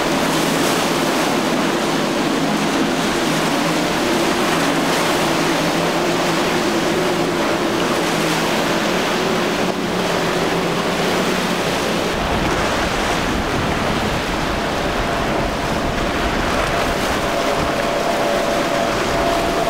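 Outboard boats running at speed through rough inlet water: a steady engine drone under loud rushing spray and wave wash, with wind noise on the microphone. About twelve seconds in, the sound changes to a heavier low rumble, and a few seconds later a new, higher steady engine tone comes in from a second boat's twin Suzuki 150 hp outboards.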